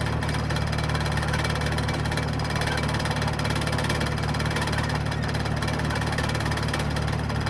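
John Deere crawler dozer's diesel engine running steadily under load as it drives forward in third gear, pulling on a chain.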